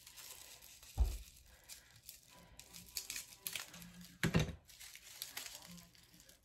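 Plastic wrapping crinkling and rustling as small plastic containers are unwrapped and handled, with two knocks on the table, about a second in and about four seconds in.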